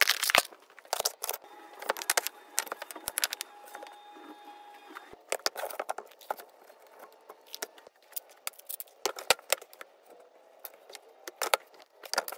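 Irregular small clicks, clinks and knocks of tools and wooden pieces being handled on a workbench.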